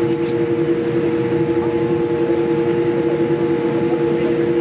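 Cabin noise of a Boeing 787-8 taxiing after landing: a steady hum made of a few held tones over an uneven low rumble.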